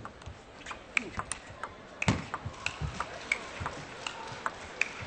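Table tennis ball being struck back and forth in a rally: a run of sharp, ringing clicks of the celluloid ball off rubber paddles and the table, about two to three a second, with some dull low thuds among them.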